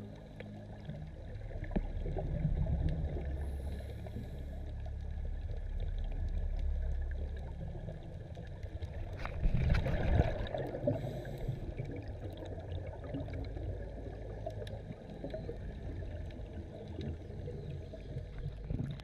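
Underwater sound picked up by a diving camera: a steady low rush of water with scattered faint clicks, swelling to a louder surge about nine to ten seconds in.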